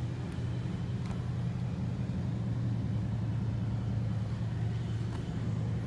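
Steady low machine hum with no speech, holding an even pitch throughout.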